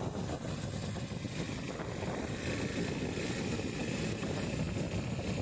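Honda XR250 Tornado's single-cylinder four-stroke engine running steadily as the dirt bike rides along a gravel track, with wind buffeting the microphone.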